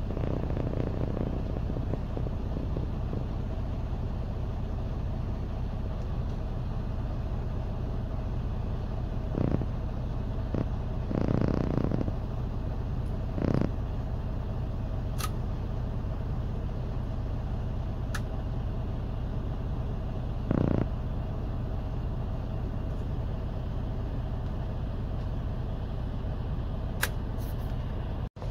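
Freightliner Cascadia's diesel engine idling steadily at low idle, about 600 rpm: the parked regen it is being asked for is not running. A few short louder noises sound over the hum around ten to fourteen seconds in and again about twenty seconds in.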